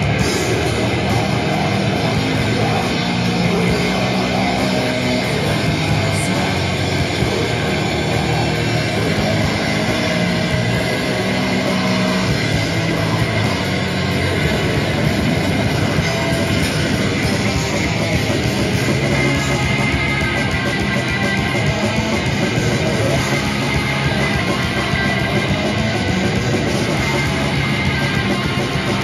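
Grindcore band playing live: distorted electric guitars, bass and drums, with a vocalist screaming into a microphone, loud and unbroken throughout.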